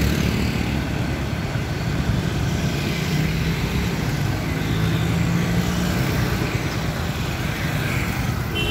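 Road traffic: motorcycles and other vehicles passing on a city street, a steady mix of engine noise, with one engine's hum standing out for a few seconds in the middle.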